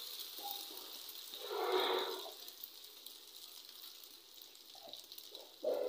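Egg-and-vegetable omelette batter sizzling in hot oil on a tawa, swelling louder for a moment about a second and a half in while it is spread with a spatula. A short bump sounds near the end.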